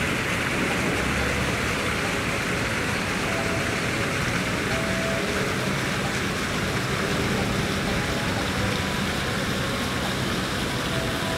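Steady outdoor city ambience: a continuous wash of noise with a low hum of distant traffic.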